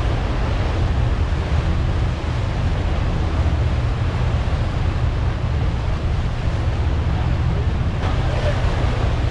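Steady wind buffeting a camera mounted high on a sportfishing boat's outrigger, over the low drone of the boat underway at trolling speed and its wake churning below.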